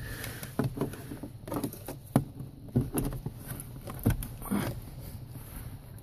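Handling noise from a coiled power cord and its plug: scattered light clicks and knocks over soft rustling.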